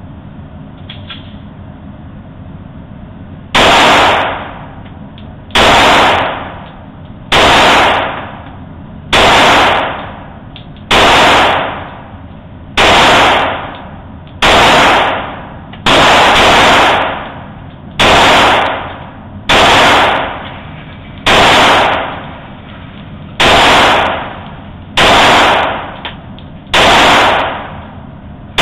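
Gunshots on a shooting range: a steady string of about fourteen single shots, one every two seconds or so, each very loud with a short echoing tail. The first shot comes a few seconds in.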